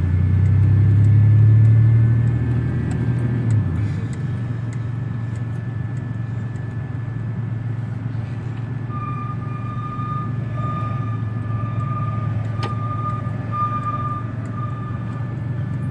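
Car engine and road noise heard from inside the cabin while driving, a steady low rumble that is louder for the first few seconds, then settles. A faint high tone comes and goes in short repeats through the second half.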